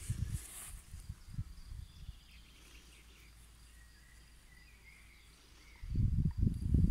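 Wind buffeting the microphone in irregular low rumbles. It dies down after about two seconds, leaving faint bird chirps, and comes back strongly near the end.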